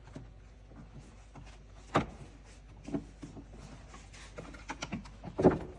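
Clicks and knocks from a car's plastic air filter housing being unfastened and opened by hand: a sharp snap about two seconds in, a lighter one a second later, and the loudest clatter near the end.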